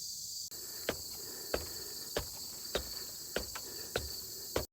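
Footsteps climbing steps, about one step every 0.6 seconds, starting about half a second in, over a steady high chirring of crickets and other insects.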